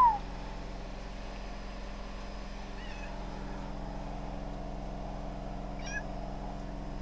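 A cat gives one short, loud meow right at the start, followed by fainter, higher chirping calls about three and six seconds in.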